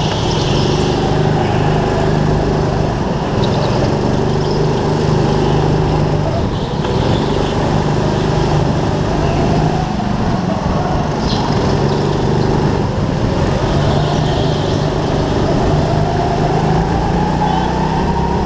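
Go-kart's small engine heard from on board, running hard through a lap, its pitch stepping up and down with the throttle and climbing steadily near the end.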